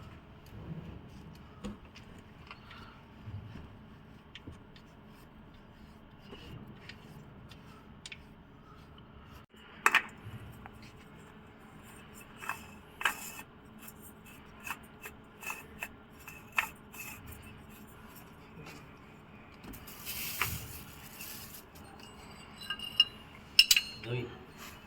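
Scattered metallic clicks, clinks and scrapes of hand tools and parts being handled while a car's oil filter is fitted, with a brief hiss about twenty seconds in.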